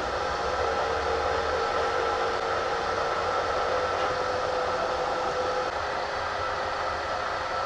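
Bridgeport vertical milling machine running steadily, its spindle turning a center drill. The motor gives a steady hum with a whine over it, and the lower whine fades about six seconds in.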